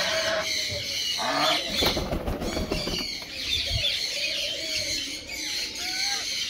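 White domestic geese calling in short, repeated honks, with a louder noisy burst of wing flapping about two seconds in.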